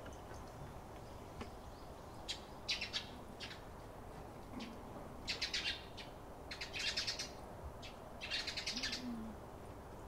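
Eurasian tree sparrows chirping. Clusters of short, rapid high chirps come in several bursts, the loudest run near the end.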